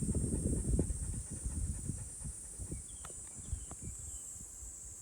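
Gusty wind rumbling on the microphone, heaviest for the first two seconds and then easing, over a steady high chirring of insects.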